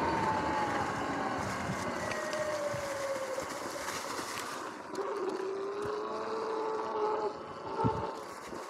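Sur-Ron X electric dirt bike's motor and belt drive whining, the pitch falling steadily as the bike slows over the first few seconds, with wind rushing over the microphone. About five seconds in the wind drops and a lower whine rises slightly as the bike rolls on, with a couple of thumps near the end.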